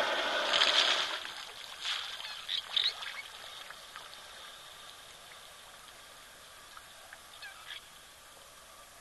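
Water splashing as an African elephant drinking at a waterhole lets water fall from its trunk, then a few short, high bird calls a couple of seconds in.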